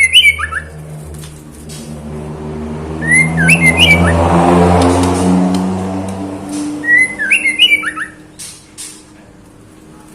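Female white-rumped shama calling: three short bouts of rising, gliding call notes about three and a half seconds apart, the call of a female in breeding condition calling for a male. Through the middle a passing vehicle's engine hum rises and fades under the calls.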